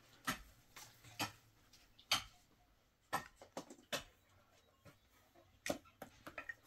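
Irregular sharp taps and clicks in a small room, about a dozen short knocks spaced unevenly, with a quick cluster near the end.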